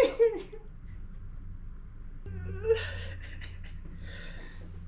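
A man's short, high-pitched, whimper-like vocal noises and breathy laughter, with a quiet stretch between them.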